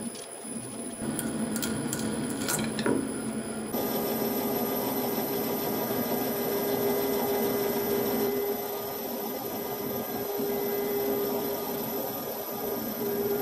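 Lathe turning a nylon bar: a steady machine hum with a constant tone as the tool cuts the contour, starting abruptly about a third of the way in. Before that, a few clicks and knocks as a hand works at the tool post.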